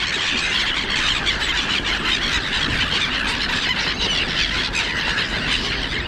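A dense, steady chorus of many overlapping high-pitched squealing bird calls with no pause.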